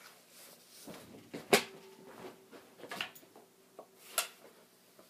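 Knocks and clicks of guitar gear being handled while one guitar is swapped for another, the sharpest knock about a second and a half in. A faint steady hum sits under them after that.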